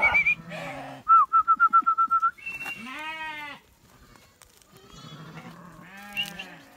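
Goats and sheep bleating one after another: a high wavering bleat at the start, a loud, rapidly quavering bleat about a second in, a long bleat near three seconds, and lower baas near the end.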